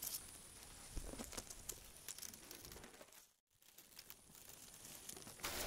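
Faint rustling and crackling of grass and dry undergrowth, with scattered small clicks. The sound drops out completely for a moment about three and a half seconds in.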